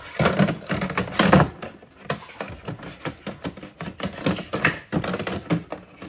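Hard plastic parts of a robot vacuum and its packaging being handled: an irregular clatter of clicks, taps and knocks, busiest in the first second and a half.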